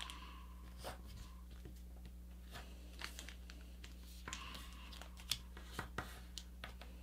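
A square sheet of paper being folded and creased by hand on a cutting mat: faint rustling with scattered small crisp clicks and scrapes as the folds are pressed down.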